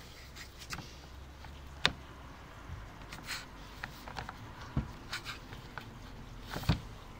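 Hands working a drill pump attachment onto an electric drill's chuck: a few sharp clicks and knocks of hard plastic and metal, the loudest about two seconds in and near the end. The drill itself is not running.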